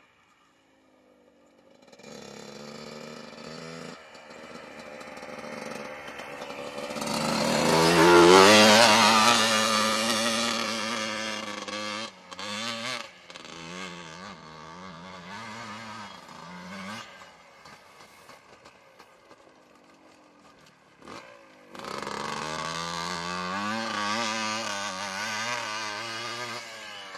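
Yamaha Blaster ATV's two-stroke single-cylinder engine revving up and down as it is ridden over gravel. It swells to its loudest about eight seconds in, drops away and wavers low for a while, then comes back loud and revving for the last five seconds.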